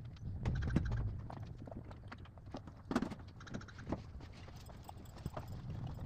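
Horse hooves stepping, an irregular series of knocks, with a low rumble in the first second.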